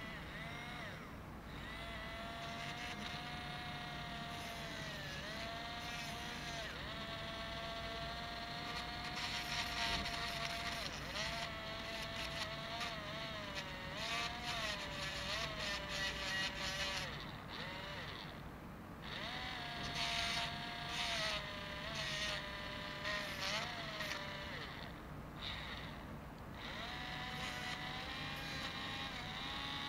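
Small handheld electric rotary tool running with a high whine, its pitch dipping again and again as the spinning bit is pressed into a small part to cut and trim it, with short stretches of scratchy grinding noise in the middle.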